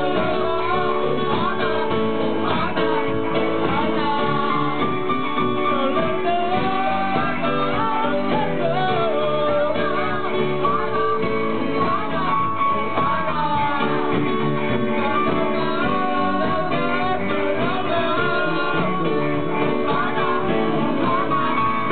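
A live band playing: a singer's voice over electric guitar and band, continuous with no breaks, recorded from within the audience with a muffled, dull top end.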